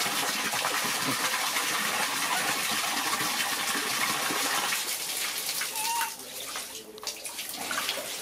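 Stream of water pouring and splashing into a large metal basin of water, a steady gush that stops about six seconds in.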